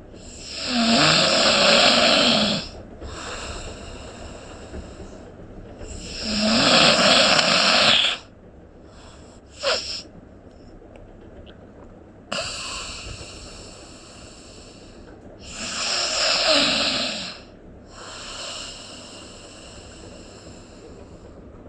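A person snoring: three long, loud snores about six to seven seconds apart, each followed by a quieter breath out. About ten seconds in there is a brief sharp sound.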